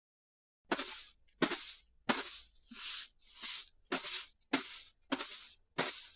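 Street sweeper's broom sweeping pavement in steady strokes, nine swishes about one every 0.6 seconds, starting about a second in.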